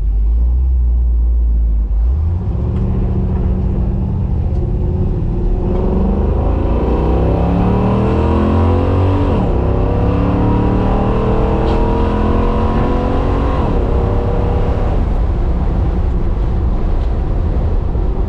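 1967 Chevy Nova's engine, freshly fitted with FiTech fuel injection, under hard acceleration. After about two seconds of low running it revs up steadily, drops in pitch at two upshifts about four seconds apart, then holds a steady drone.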